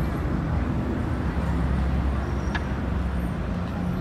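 Steady outdoor street ambience: a low, continuous rumble of road traffic.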